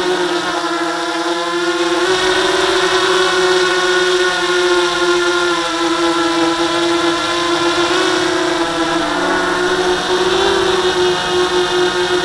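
Small quadcopter drone's electric motors and propellers whining steadily in flight, one strong hum with a buzz of overtones, its pitch wavering slightly.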